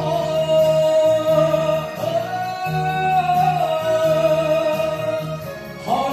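Kayō-gin singing: one voice holds a long, drawn-out note that bends up and then back down, over a backing track with a pulsing bass line. A new phrase begins near the end.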